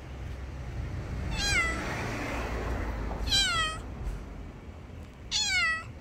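Grey-and-white cat meowing three times, about two seconds apart, each meow falling in pitch.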